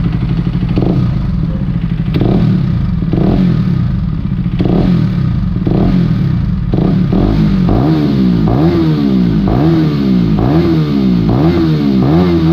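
KTM Duke 250's single-cylinder engine running with the stock silencer removed, through a short open bend pipe. It is revved in short throttle blips about once a second, each rev climbing and dropping back, with the blips more regular in the second half.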